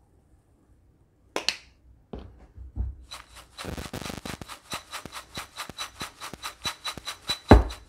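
Popcorn being tossed in a bowl held in both hands: rapid rustling and rattling of popped kernels against the bowl from about three seconds in, after a sharp knock about a second in. A heavy thump near the end is the loudest sound.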